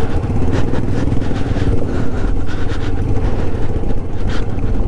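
TVS Apache 160 4V motorcycle's single-cylinder engine running steadily as the bike is ridden through a snowmelt water crossing, with scattered short sharp sounds over the engine.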